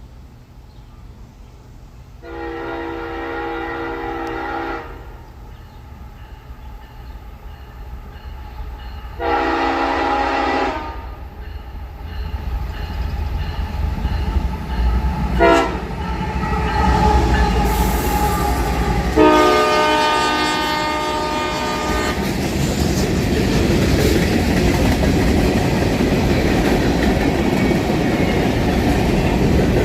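Freight locomotive's Leslie S5T five-chime air horn sounding the grade-crossing signal: two long blasts, a short one, then a long one. It plays over the rising rumble of the approaching diesel, and near the end the train is going by, wheels clicking over the rail joints.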